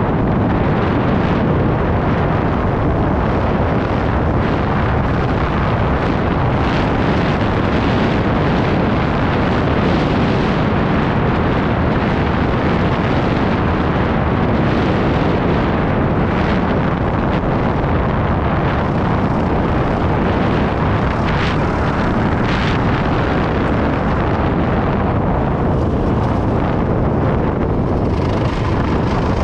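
Loud, steady wind noise on a bike-mounted camera's microphone while a Honda CRF450RL dual-sport dirt bike rides along a gravel road, with the bike's engine running underneath.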